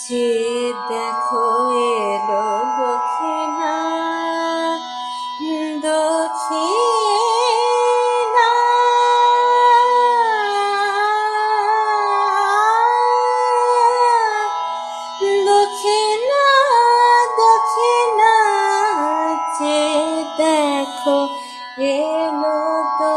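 Indian devotional music: a single melody line slides and wavers in pitch over a steady drone, without clear words.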